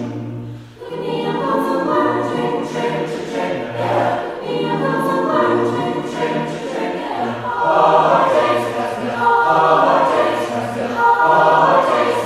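College chorale singing in harmony, the low voices repeating a short low note beneath the chords. The singing dips briefly just under a second in, then swells back.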